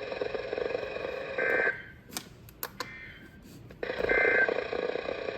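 NOAA Weather Radio receiver hiss carrying short digital data bursts, the EAS/SAME end-of-message code that follows a warning: one about 1.5 s in, a fainter one between, and another about 4 s in. The signal's hiss drops out for about two seconds in the middle.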